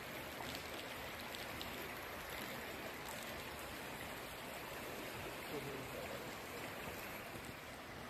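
Shallow creek water running steadily over stones.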